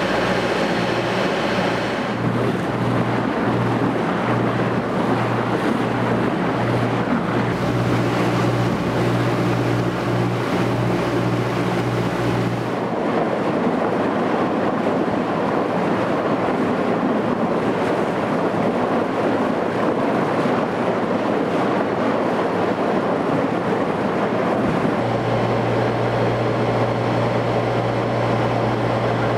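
Queen of Falmouth passenger ferry's engine running steadily under way, a low hum beneath wind on the microphone and the rush of water along the hull. The engine note changes abruptly a few times.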